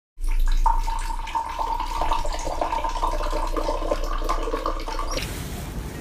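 Water poured from a bottle into a drinking glass: a steady thin trickling stream that stops abruptly about five seconds in.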